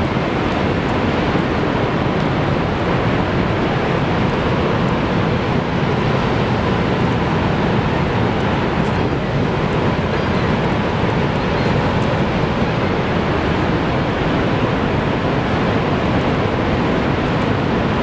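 Niagara's Horseshoe Falls: a huge volume of water plunging into the basin below, heard as a loud, steady rush with no breaks.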